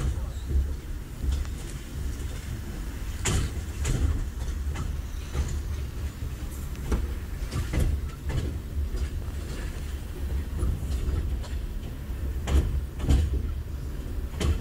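KTM Senandung passenger train rolling along the track, heard from inside the carriage: a steady low rumble with irregular sharp knocks as the wheels pass over rail joints.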